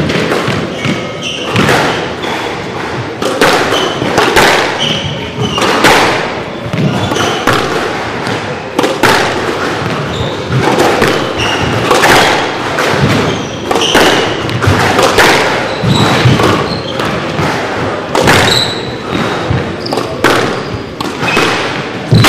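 Squash rally: the ball is struck by rackets and smacks off the court walls, sharp thuds about once a second that echo around the court. Shoe soles squeak briefly on the wooden floor between shots.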